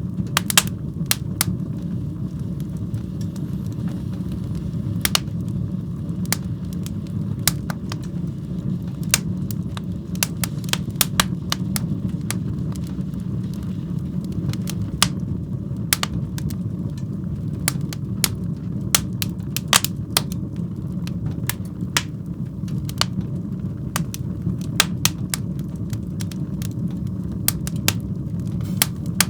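Wood fire burning in a fireplace: a steady low rumble of the flames with frequent sharp crackles and pops at irregular intervals.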